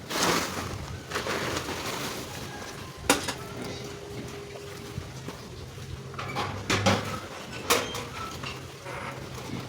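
A rustling scrape at the start, then a few sharp knocks and clatters of hard objects.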